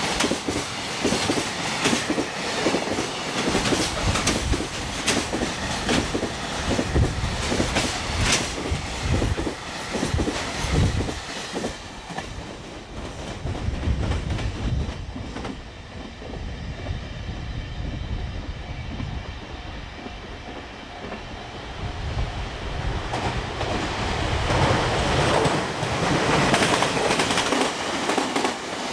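Freight train wheels clattering over rail joints: a fast run of heavy clunks as the wagons pass. Partway through, the clunks give way to a quieter steady rumble, and a louder rushing noise builds near the end.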